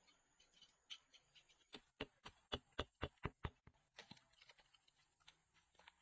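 A quick run of about nine light, sharp knocks, roughly four a second, starting a little before two seconds in and stopping near four seconds, with fainter scattered clicks around them.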